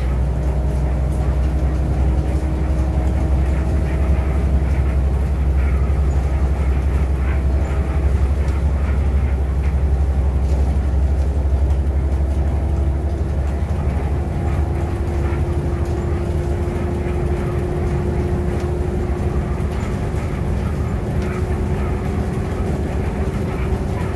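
Inside a city bus cruising at speed: a steady low engine and drivetrain drone with tyre and road noise, and a faint whine that slowly rises in pitch from about halfway through.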